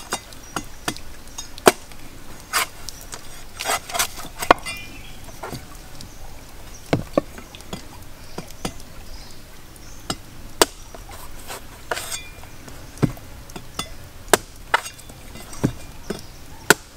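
A large knife chopping into the husk of a whole green coconut on a wooden chopping block: irregular sharp chops, often a second or so apart, some louder and duller than others.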